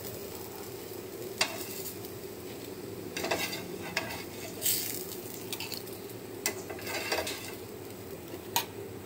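Eggplant slices sizzling in hot mustard oil in a frying pan, with a metal spatula scraping the pan and clinking against a steel bowl as the fried slices are lifted out, in a series of short scrapes and clinks.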